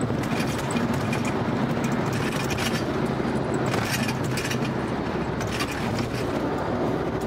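Cabin sound of a 2013 Dodge Charger SRT8 cruising on the highway: the steady low hum of its 6.4-litre HEMI V8 under tyre and road noise, with scattered brief knocks and rattles from the road. The owner blames the replica Hellcat wheels for the rough ride.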